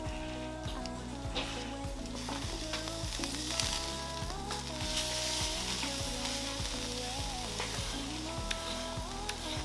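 Food sizzling as it fries in hot fat, the sizzle loudest in the middle few seconds, over background music with a slow steady beat.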